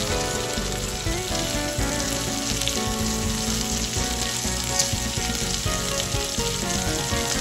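Ribeye steak sizzling in oil and melted butter on a hot ridged grill pan: a steady dense crackle with a few sharper pops, one louder about halfway through.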